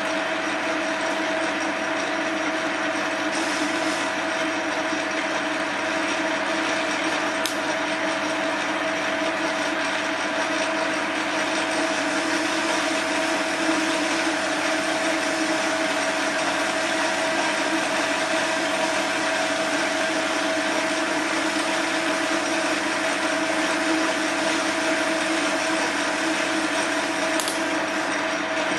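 Small bench metal lathe running under power feed while a carbide insert takes a fine-feed turning cut on steel: a steady mechanical whine from the headstock and feed gearing, with an even hum that does not change.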